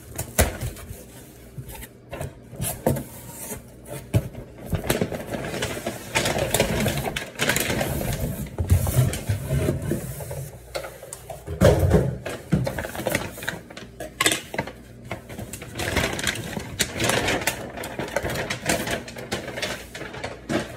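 A cardboard shipping box being handled and opened: flaps scraping and packaging rustling, with many short knocks and clicks throughout.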